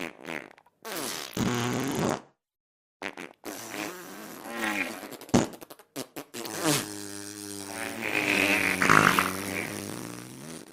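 Farting sound effect: a run of pitched, buzzy farts with short silent gaps between them, the last one drawn out for several seconds.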